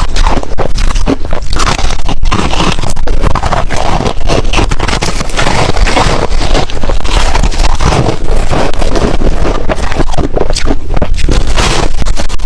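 A person chewing and crunching ice close to the microphone: a loud, dense run of crunches with no pause.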